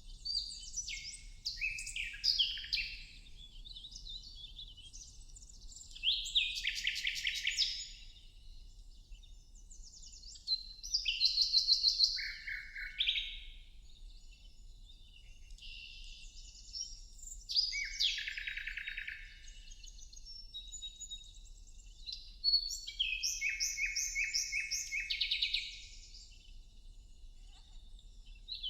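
A songbird singing: about five phrases of rapid notes that fall in pitch, each one to three seconds long, coming every few seconds.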